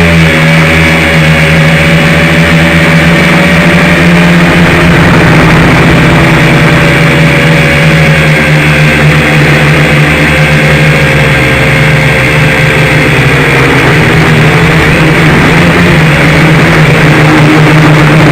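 Dromida Ominus FPV quadcopter's electric motors and propellers buzzing steadily in flight, the pitch sagging slowly and then shifting as the throttle changes.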